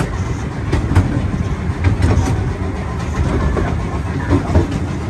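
Steady low rumble of a moving amusement-ride vehicle, with a few clicks and knocks.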